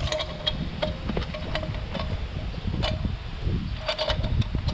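Metal exhaust header pipe on a Yamaha MT-07 clinking as it is worked into place at the engine: a string of irregular light metallic taps, each with a short ring, over low rustling of hands.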